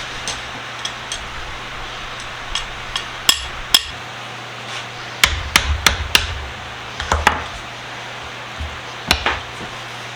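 Irregular sharp knocks and taps of hard objects, some with a brief metallic ring, clustered around the middle of the stretch, over a steady low hum.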